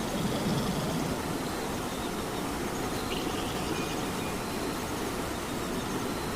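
Steady rain falling, an even hiss with a fuller low rush underneath.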